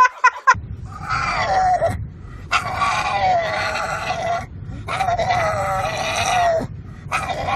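An animal calling: four long, drawn-out cries, each sagging in pitch, with short pauses between them.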